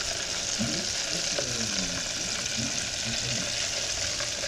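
Battered bullfrog legs deep-frying in hot oil in a countertop deep fryer's wire basket: a steady sizzle and bubbling of the oil.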